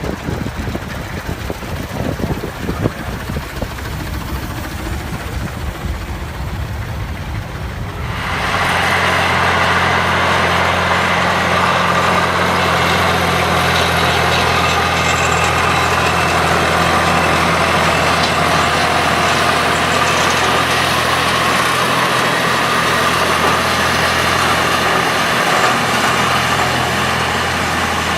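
Volvo BM tractor's diesel engine running while ploughing. For the first eight seconds it is fainter and mixed with a low rumble; then it becomes suddenly louder and holds a steady, even engine note to the end.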